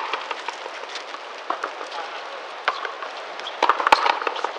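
Frontenis rally: a string of sharp cracks from rackets striking the rubber ball and the ball hitting the front wall and floor, about a second apart, with a close cluster of the loudest hits near the end. A steady hiss of court ambience runs underneath.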